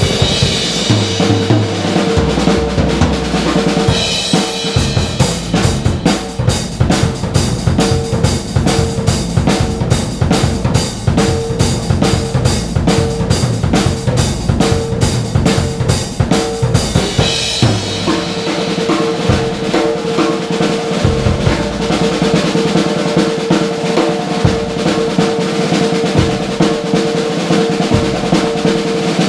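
Blue Ludwig drum kit played in an improvised solo: kick and snare grooves, with a long stretch of fast, evenly spaced strokes from about four seconds in until a little past halfway, then back to a looser groove.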